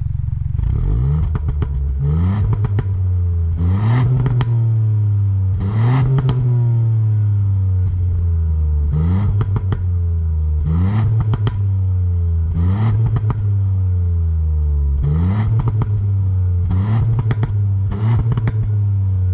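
Ford Puma ST's 1.5-litre turbocharged three-cylinder EcoBoost engine revved at standstill, heard at the twin exhaust tips: about ten quick throttle blips roughly two seconds apart, each rising sharply and sinking slowly back to idle, with a brief crackle at each blip.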